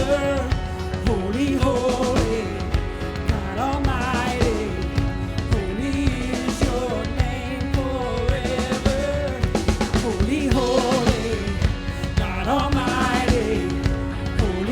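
Music: a voice singing long, wavering notes over instruments and drums.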